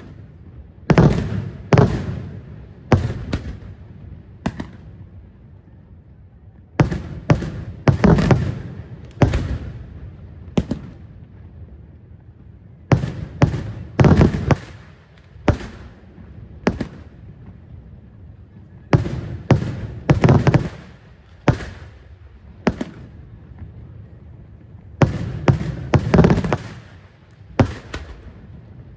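Daytime fireworks: aerial shells bursting overhead with sharp, loud bangs, fired in quick groups of three to six with short gaps between the groups, each bang trailing off in an echo.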